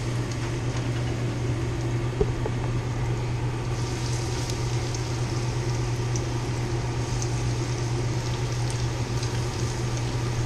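Scup fillets sizzling in hot oil in a frying pan, a steady hiss that grows stronger about four seconds in, over a steady low hum.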